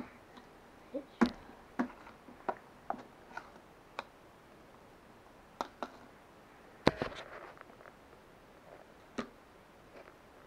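Light clicks and knocks of small objects being handled and set down, about a dozen scattered over several seconds, the loudest about seven seconds in.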